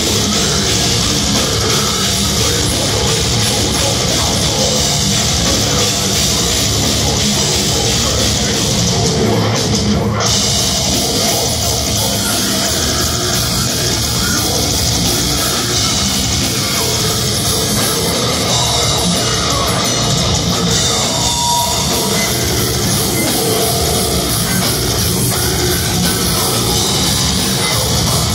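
Live technical death metal band playing, electric guitars and drum kit together, loud and dense without a break, heard from the audience.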